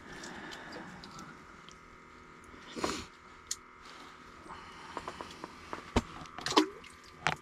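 Handling noises as a small fish is unhooked from a jigging lure by hand: rustling, then scattered sharp clicks and knocks, the loudest near the end.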